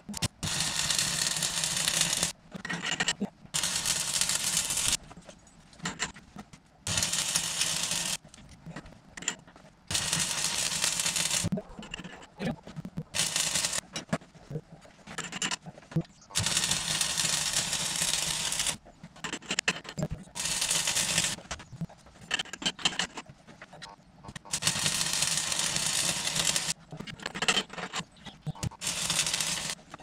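Stick (MMA) arc welding in short runs of about one to three seconds each, the arc crackling and hissing, with short pauses between runs: weld being built up on the backhoe's worn main shaft.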